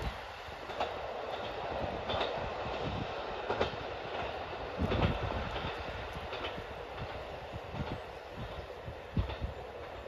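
A single-car KiHa 40 diesel railcar running away down the line: a steady rumble of engine and wheels that slowly fades, with a few sharp clacks as its wheels cross rail joints.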